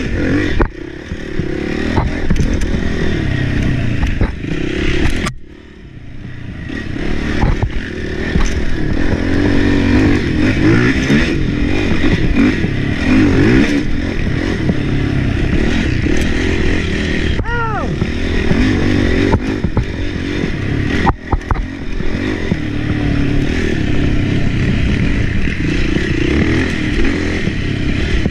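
Sport ATV engine revving up and down as the quad is ridden hard over a rough trail, with the chassis clattering over bumps. The throttle drops off briefly about five seconds in, then picks up again.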